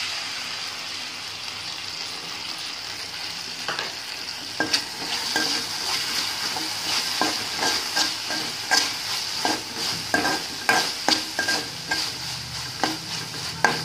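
Chopped onion, carrot and curry leaves with tomato sauce sizzling in hot oil in a metal kadai, a steady hiss. From about four seconds in, a spatula stirs the mix, scraping and clicking against the pan several times a second.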